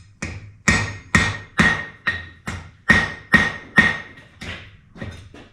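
Hand hammer striking hot iron on an anvil about twice a second, each blow ringing with the anvil's high note, a few of them lighter taps: setting a forge weld in the fluxed bar stock.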